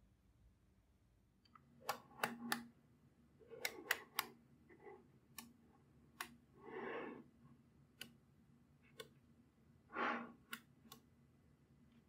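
Small magnetic balls clicking as they snap together, in irregular bursts of sharp clicks with a few longer, softer rustles in between.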